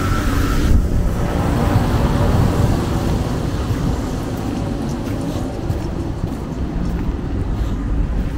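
Steady low rumble of city road traffic, with a higher hiss dying away about a second in.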